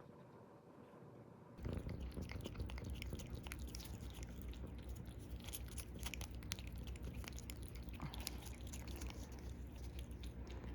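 A cat purring close to the microphone, a steady low rumble that starts suddenly about a second and a half in, with small clicks over it.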